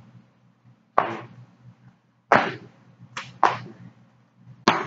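Feet landing hard on a floor during split squat jumps: four sharp thuds about a second apart, one of them doubled as the feet come down one after the other. A low steady hum runs underneath.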